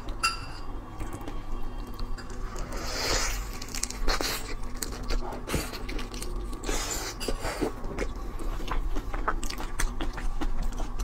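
Close-miked eating of a whole shrimp in chili-oil sauce: biting and chewing, with the shell crackling in many small clicks and two longer hissing sounds, about three and about seven seconds in.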